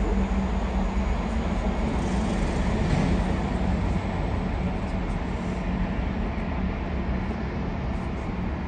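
Jet airliner engines running with a steady, deep rumble that slowly fades.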